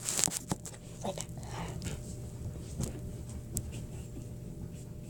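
A phone being set down in a small closet: a few handling clicks and knocks at the start, then faint scattered rustles and ticks over a low steady hum.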